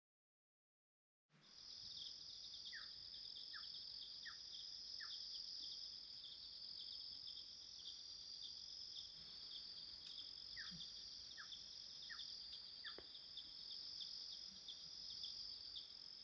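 Crickets chirring in a steady, dense night chorus, starting after about a second and a half of silence. Twice a short run of four quick falling call notes sounds over the chorus.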